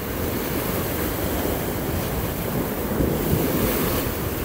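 Sea surf washing against a rocky shore, with wind buffeting the microphone in a steady low rumble.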